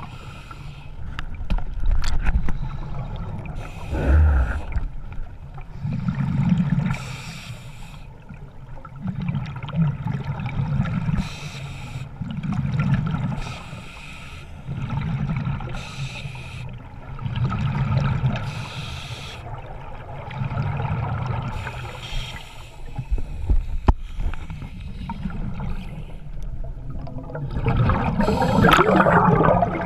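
Water sloshing and splashing close to the camera in a regular rhythm, about one surge every two seconds, with a louder, splashier stretch near the end.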